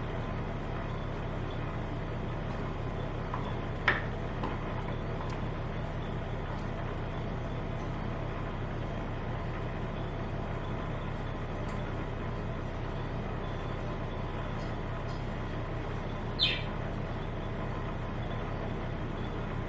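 Steady low mechanical hum. Two brief high chirps cut through it, about four seconds in and again near the end; the second falls in pitch.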